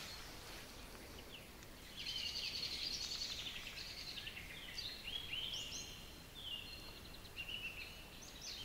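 Faint birdsong: a fast trill starting about two seconds in, followed by a run of short, high gliding chirps.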